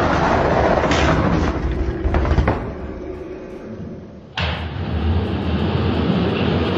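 Die-cast Hot Wheels monster trucks rolling down an orange plastic track: a rumbling clatter with several clicks over the first two and a half seconds that dies away, then a steady rumble that starts abruptly about four and a half seconds in.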